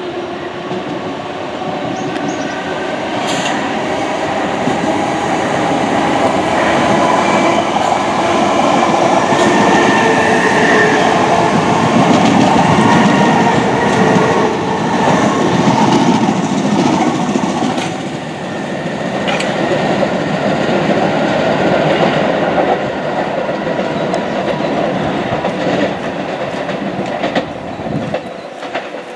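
A train running past on the rails, its noise building to a peak about halfway through and easing off near the end, with a few sharp clicks from the wheels.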